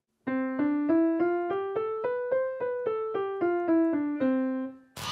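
Piano playing a scale one note at a time, about three notes a second, climbing about an octave and coming back down to the starting note, which is held at the end.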